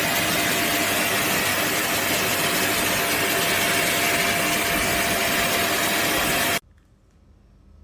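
Kärcher VC3 Plus bagless multi-cyclone vacuum cleaner running with a steady rush of air and a constant tone, then stopping abruptly about six and a half seconds in.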